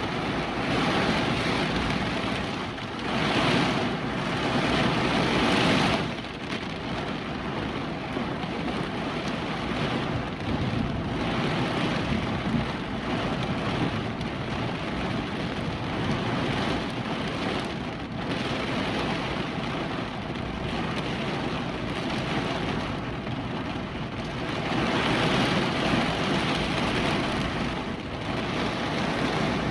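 Hurricane wind and heavy rain, a dense steady rush that surges louder in gusts, once a few seconds in and again near the end.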